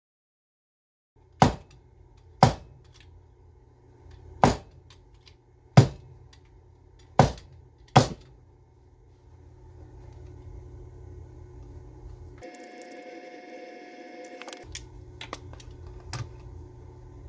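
Six sharp knocks, a second or more apart, from angle grinder parts and tools being worked during disassembly. They are followed by a few faint small clicks.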